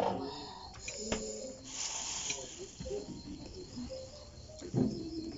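Close mouth sounds of eating noodles, with short sucking and chewing noises, a small click about a second in and a hissy slurp around two seconds in. Insects trill steadily and faintly in the background.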